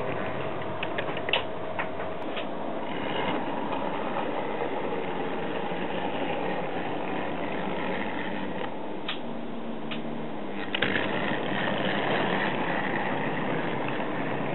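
Model train running on its track: a steady mechanical whirr with occasional sharp clicks, a few close together near the start and more a little past the middle, growing slightly louder near the end.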